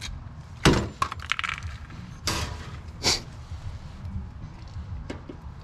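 Hand pop-rivet gun setting a rivet: a sharp snap a little under a second in as the mandrel breaks off, the sign that the rivet is set. Lighter metallic clicks and a couple of short scraping rustles follow.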